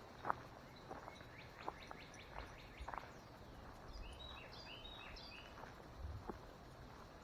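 A songbird singing a quick phrase of repeated short high notes, about four seconds in, over faint footsteps on a trail.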